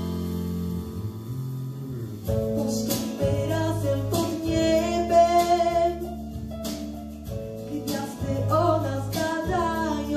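A girl singing over a backing track with acoustic guitar; the accompaniment plays alone for about the first two seconds before her voice comes in, holding long wavering notes.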